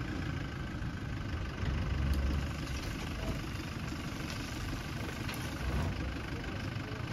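Toyota Hilux pickup's engine running at low revs as the truck backs up slowly, with a slightly louder surge about two seconds in.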